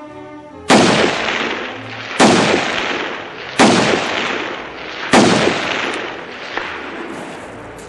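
Four shots from an AR-style semi-automatic rifle fired from prone, spaced about a second and a half apart, each with a long echo dying away before the next.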